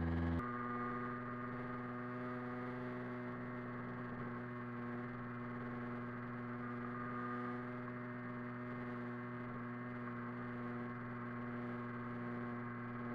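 Vintage moped engine running at a steady cruising speed, one constant engine note that holds its pitch without change.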